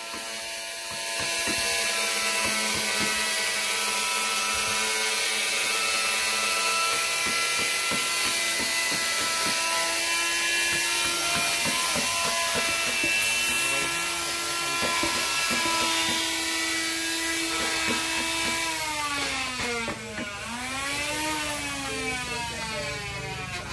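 A small motor whines steadily, then dips in pitch and climbs back up a few seconds before the end.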